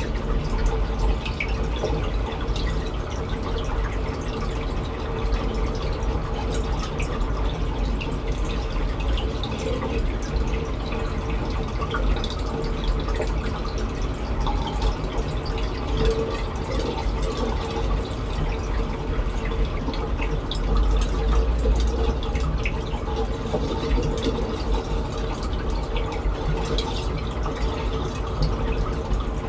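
Reef aquarium water circulating: a steady trickle with many small drips and splashes over a constant low rumble.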